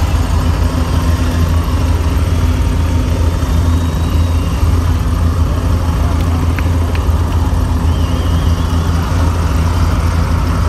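Recorded helicopter sound effect played loud over an arena PA: a steady low drone of rotor and engine.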